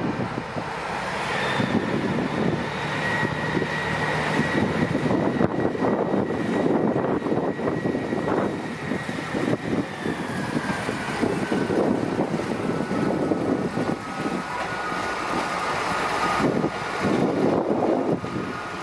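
A Northern Sprinter-family diesel multiple unit running slowly through a station, its underfloor diesel engine running with a steady high whine that slowly falls in pitch.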